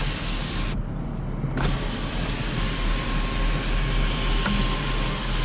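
Electric sunroof motor of a BMW E46 running as the one-touch power moonroof moves. About a second in it stops for just under a second, then starts again with a click. The engine idles underneath.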